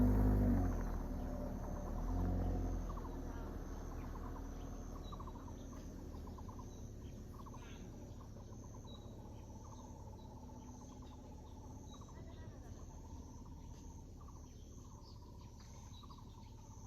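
Outdoor ambience of insects chirring steadily, with repeated chirps and bird calls. A low rumble fades out over the first three seconds, and the whole sound slowly grows quieter.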